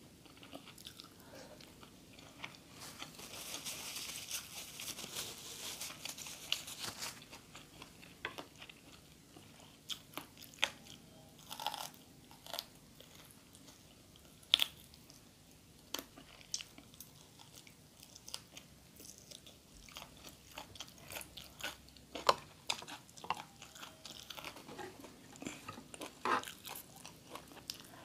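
Close-miked chewing and biting of food, with irregular sharp crunches scattered through and a denser run of crunching about four seconds in.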